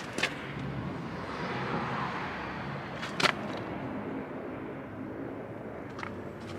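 A road vehicle passing by, a swell of traffic noise that builds and fades around two seconds in over steady outdoor background noise, with a few sharp clicks near the start and about three seconds in.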